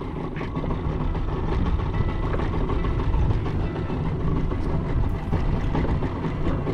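Outboard motor of a small open fishing boat running steadily at low speed, a continuous low hum with the wash of the sea around it.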